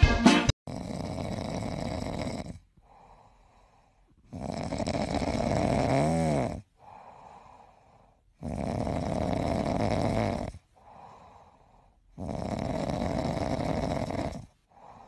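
Grey cat snoring in its sleep: four loud snores of about two seconds each, one every four seconds or so, with fainter breaths between them.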